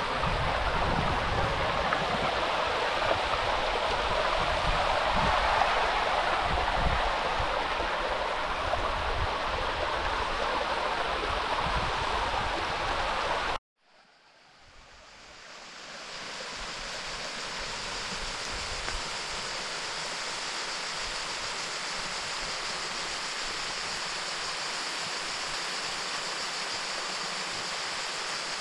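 Rushing river water, a steady hiss with irregular low rumbles underneath. About halfway through it cuts off suddenly, and a steadier, higher-pitched rush of water fades back in over a few seconds.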